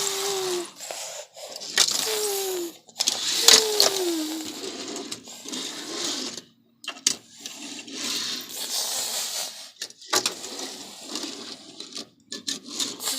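Toy race cars being pushed along a hard surface, their plastic wheels and bodies rolling, scraping and clicking. In the first few seconds there are three short tones that glide downward in pitch.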